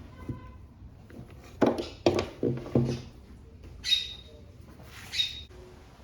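A few sharp knocks and clunks in quick succession, like objects being handled on a work surface, followed by two short high-pitched squeaks or chirps about a second apart.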